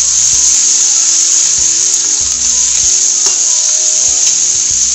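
Sliced onions sizzling in hot oil in a steel kadhai, a loud steady hiss, with the occasional scrape and knock of a slotted spatula stirring them.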